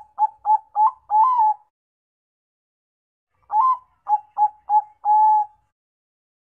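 Zebra dove of the Bangkok song strain (perkutut Bangkok) cooing: the end of one phrase, a few quick short coos and a longer closing note, then after a pause of about two seconds a full phrase of one longer coo, three quick short coos and a held final coo.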